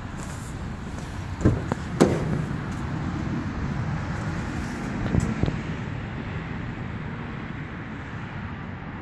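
Driver's door of a BMW X3 being unlatched and swung open, with two sharp clicks of the handle and latch about a second and a half to two seconds in, over a steady low outdoor rumble. A few lighter knocks follow about five seconds in.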